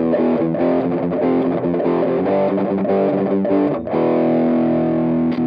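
Distorted electric guitar played through a noise suppressor and a Sonicake pedal into a Hynotone Cab Screamer60 power-amp pedal and its speaker cabinet, heard through the cabinet's microphone: a run of changing chords, then a chord held and left ringing near the end.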